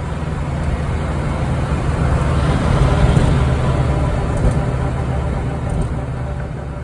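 Cabin noise inside a 1960s VW Beetle on the move: the air-cooled flat-four engine drones low under a steady rush of road and wind noise, swelling slightly in the middle.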